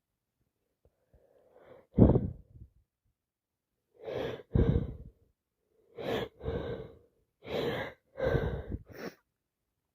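A woman with a head cold sneezing hard about two seconds in, followed by a run of short, forceful breaths that come in quick pairs.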